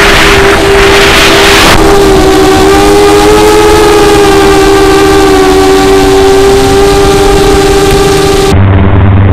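FPV quadcopter's electric motors and propellers whining steadily in flight, heard close up from the onboard camera, the pitch drifting slightly as the throttle changes, with wind rushing over the microphone for the first couple of seconds. Near the end the sound changes abruptly to a duller, lower steady hum.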